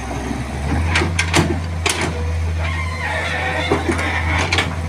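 Wheeled excavator's diesel engine running steadily at a low hum, with a cluster of sharp metallic clanks about a second in and two more near the end.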